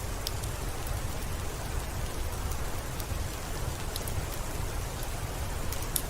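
Steady rain on a window: an even hiss with a low rumble underneath and scattered sharp ticks.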